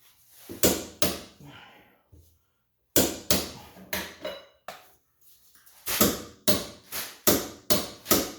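A series of sharp knocks from hand-tool work on a rear lower tie bar being fitted under the car. There are two near the start, a group of four about three seconds in, and a quicker run of about six in the last two and a half seconds.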